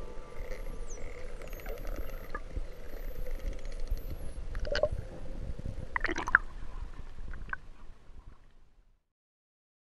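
Dolphins whistling underwater: high rising and falling whistles and trains of quick clicks over a gurgling water rush, with a few louder bursts in the middle, fading out to silence near the end.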